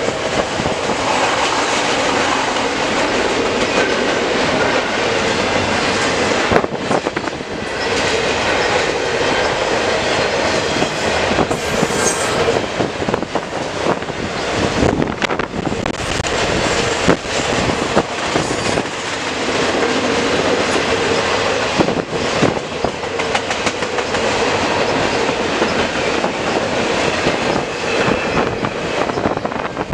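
CN double-stack intermodal train's container well cars rolling past: a steady, loud rumble and rattle of steel wheels on rail with repeated clicks, and a brief high-pitched sound about twelve seconds in.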